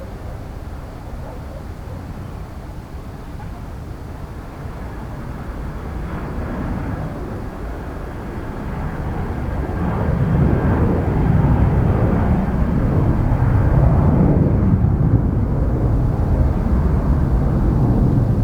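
Jet airliner's engines rumbling as it passes, the deep noise growing louder about ten seconds in.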